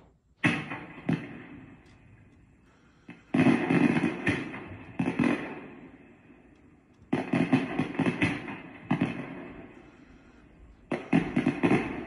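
Recorded firework sound effects from an LED firework projector's small built-in speaker. There are four bursts, each starting suddenly with a cluster of pops and crackles and fading away over a few seconds.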